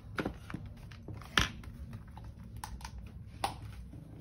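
Scattered light clicks and taps from plastic binder envelopes being handled, with a sharper click about one and a half seconds in and another about three and a half seconds in.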